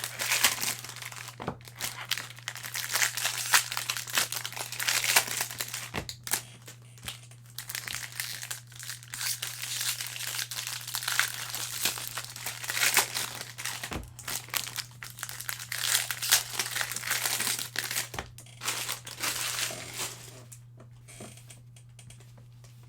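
Crinkling and tearing of plastic or foil wrapping as a box of 2021 Bowman Jumbo baseball card packs is opened, with four sharp knocks along the way. The crinkling stops a few seconds before the end.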